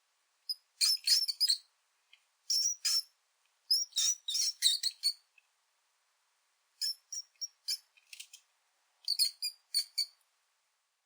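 Mouse squeaks: clusters of quick, high-pitched squeaking, about six bursts with silent gaps between them.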